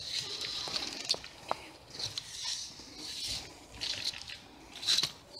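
Rustling and crunching of someone moving through undergrowth: leaves and branches brushing against the camera and footsteps in dry leaf litter. It comes in irregular swells with a few sharp snaps, the loudest about five seconds in.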